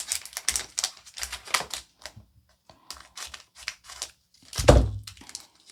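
Trading cards and their packaging being handled on a table: rapid irregular clicks, taps and rustles, with one louder thump near the end.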